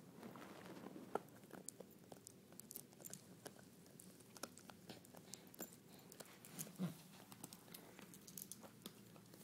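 Italian greyhound puppy chewing on a toy dinosaur: faint, irregular clicks and small crunches from its teeth working the toy, with a short low grunt about two-thirds of the way through.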